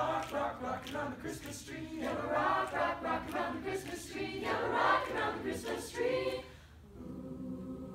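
Mixed-voice a cappella show choir singing, with many voices moving together; near the end it drops to a quieter, steadily held chord.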